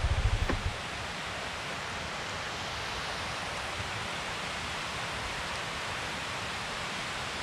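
Steady, even outdoor hiss with no distinct events. It starts less than a second in, when a low pulsing rumble cuts off abruptly.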